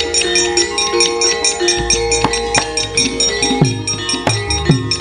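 Javanese gamelan music accompanying a wayang kulit shadow-puppet play: sustained metallophone notes, hand-drum strokes that drop in pitch, and quick sharp metallic clacks.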